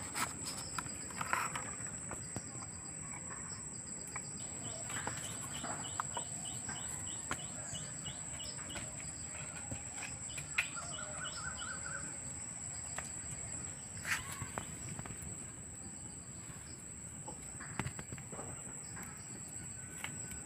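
Forest ambience: a steady high-pitched insect drone, with a bird giving a quick run of repeated chirps for several seconds early in the stretch. Occasional sharp knocks and clicks stand out above it.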